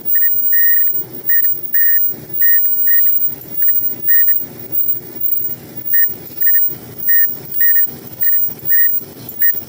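Front-load clothes dryer drum turning with a loud rhythmic squeal, a short high squeak about twice a second over a pulsing rumble. The owner takes it for worn front drum sliders (glides) rubbing as the drum turns.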